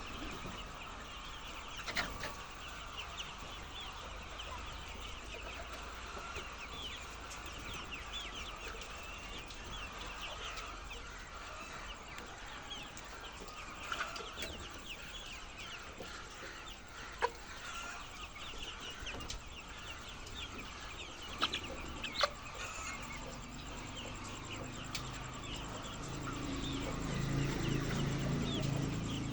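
A large flock of egg-laying hens clucking and chirping all at once in a dense, continuous chorus. A few sharp clicks are heard, and a low hum swells near the end.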